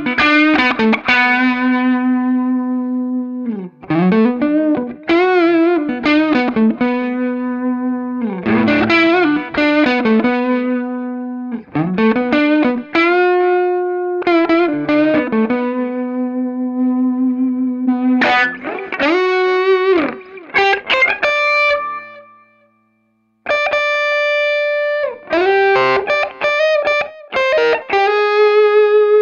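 Humbucker-equipped Harley Benton SC-550 single-cut electric guitar playing a distorted lead: long sustained notes with string bends and vibrato, cutting out briefly about three-quarters of the way through before the playing resumes.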